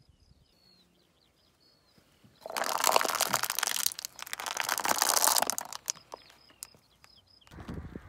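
Car tyre rolling over and crushing plastic acrylic paint tubes: a loud crackling crunch lasting about three seconds, in two surges. Faint bird chirps before and after, and a low rumble starts near the end.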